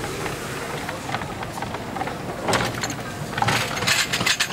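Engine assembly-line machinery running, with a steady background noise and metallic clattering and clicks, loudest about two and a half seconds in and again through the last second.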